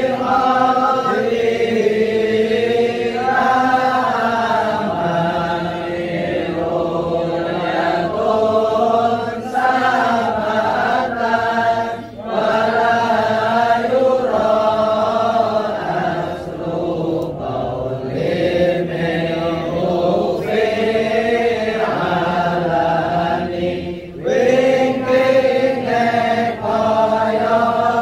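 Men's voices chanting an Islamic devotional chant together in long, melodic, sustained phrases, with short breaks between phrases about halfway through and near the end.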